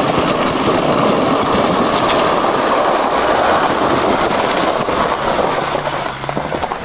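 Off-road car driven hard at close range, a loud continuous rush of engine and tyre noise that eases about six seconds in to a lower, steadier engine hum.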